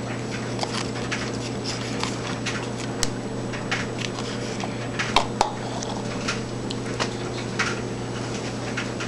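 A steady low hum with scattered small clicks and taps at irregular intervals, a few sharper ones about three and five seconds in.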